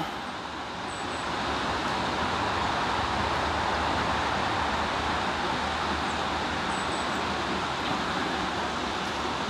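Steady rush of flowing water in a creek's tailwater below a dam, an even, unbroken noise.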